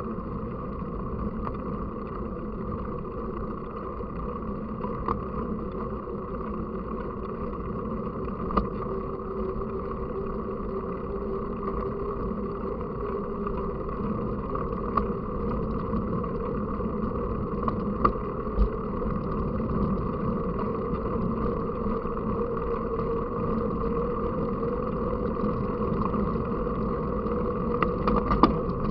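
Steady rolling and wind noise picked up by a camera riding along on a mountain bike in motion. A few sharp knocks come through, most around the middle and one near the end.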